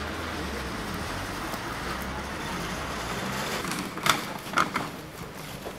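Steady rumble of street traffic with a low engine hum. About four seconds in, a few sharp knocks and rattles come from a shopping cart loaded with wooden pallets being pushed along; the first knock is the loudest.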